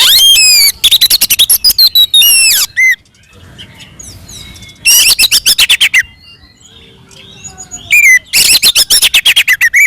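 Oriental magpie-robin (kacer) singing loud, full-voiced fighting song: three bouts of rapid stuttering notes and sweeping whistles with short pauses between. This aggressive song is the kind used to provoke other male magpie-robins into answering.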